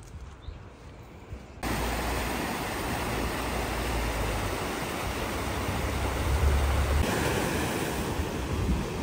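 Steady rushing water starts abruptly about one and a half seconds in, from a shallow rocky river's rapids. After a cut about seven seconds in it becomes sea surf washing over rocks, with wind rumbling on the microphone. Before the water comes in there is only faint outdoor quiet.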